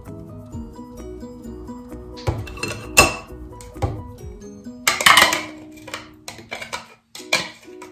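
A metal spoon scraping and knocking against the inside of a plastic blender cup while a thick berry smoothie is emptied into a glass. There is a sharp knock about three seconds in and a longer scrape around five seconds in, over background music.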